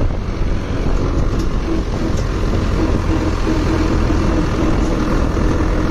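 Hindustan 80 tractor's diesel engine running steadily under way, a loud, even low rumble.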